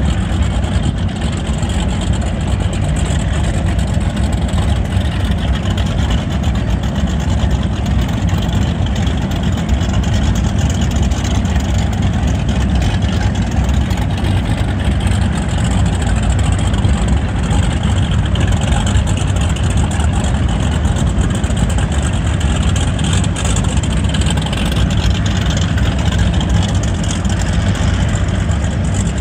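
Motorboat engine running steadily, a low drone with wind and water noise over it.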